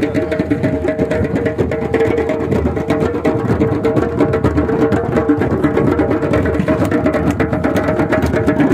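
A drum circle of djembe hand drums playing together in a fast, dense rhythm, with a steady held tone running underneath.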